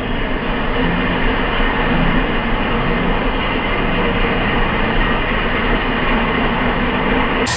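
Steady, dull-sounding rumble of a motorcade driving past close by, the presidential Cadillac limousine among the passing vehicles.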